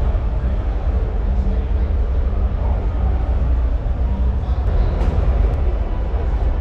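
A steady low rumble with a faint murmur of voices in a crowded hall, and a few small clicks about five seconds in.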